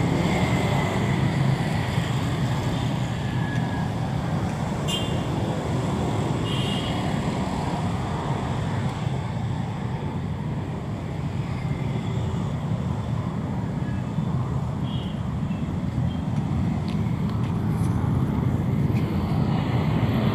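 Steady road traffic noise from cars and motorcycles passing on a busy city street, a continuous low rumble that holds without a break.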